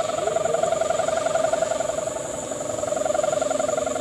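Kite hummer (sendaren) on a flying kite, humming steadily in the wind with a fast, even warble, a hooting drone.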